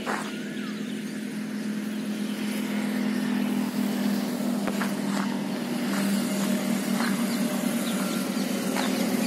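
A motor vehicle's engine running steadily as a low hum, growing a little louder from about three seconds in.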